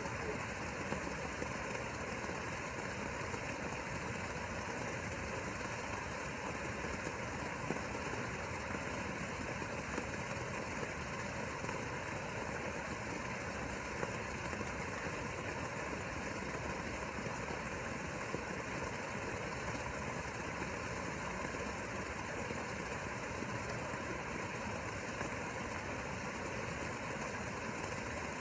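A small motor running with a steady, unbroken hum.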